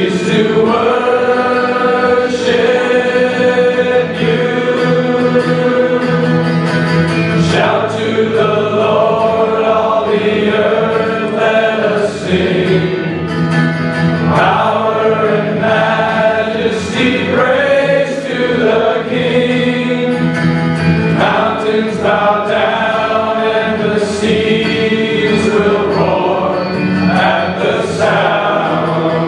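Christian worship music: a group of voices singing a slow song over guitar.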